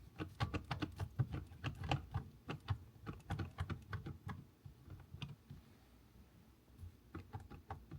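Irregular plastic clicks and taps, several a second, as the airbag module is pressed and worked into the steering wheel to seat it; they thin out for a couple of seconds before a few more near the end.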